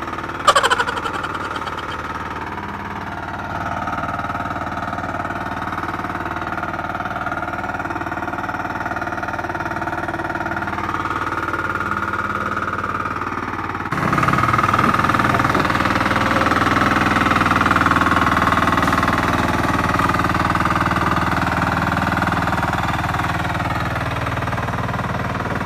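Super Kama 14 HP engine on a turtle-type paddy tiller running steadily while it works through deep rice-paddy mud. There is a brief sharp clack about half a second in, and the engine is louder from about 14 seconds in.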